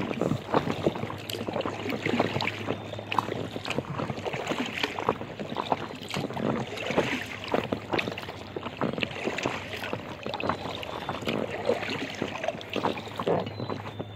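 Water splashing and lapping against the hull of an Aqua Marina inflatable kayak under way on choppy river water, with many small splashes throughout.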